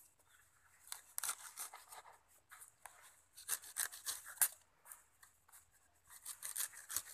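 Serrated knife sawing and scraping through the roots and fibrous corm of a banana sucker, in short irregular spells of rasping cuts, as the old roots are trimmed off.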